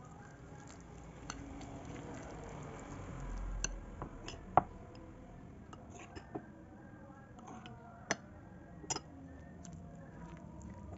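Metal utensil stirring mashed banana and flour in a glass bowl: soft squishing scrapes, broken by several sharp clinks of metal against the glass.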